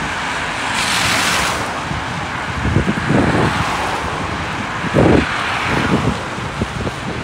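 Cars passing on a rain-wet road, their tyres hissing on the wet surface, one swishing by about a second in. Wind buffets the microphone in low gusts.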